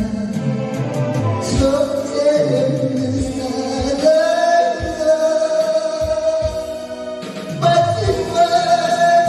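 A Korean trot song sung over a backing track, with long held notes and a short break about seven seconds in.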